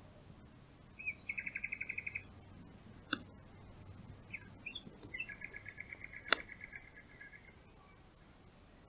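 A small songbird sings two trills of fast, evenly repeated high notes, about ten a second, the first about a second long and the second about two seconds. Two sharp clicks fall between them, the louder one about six seconds in.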